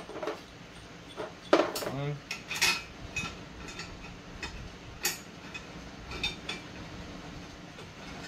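Steel bolts and brackets clinking and tapping as 3/8 bolts are worked through an axle bracket by hand: scattered light metal clinks, with a louder ringing clink about a second and a half in.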